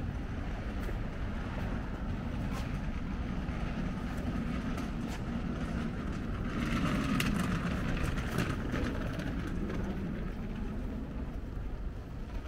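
Wet-weather street ambience: a steady hiss of rain and wet traffic over a low rumble, with a vehicle passing and swelling louder about six to nine seconds in.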